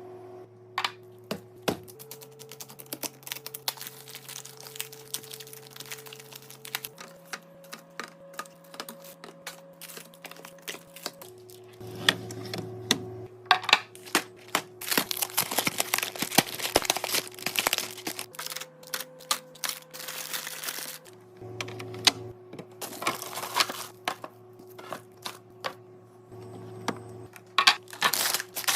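Food packaging and containers being handled and set down while restocking a fridge: many quick clicks, taps and plastic crinkling. Underneath runs a low steady drone that changes pitch abruptly every few seconds.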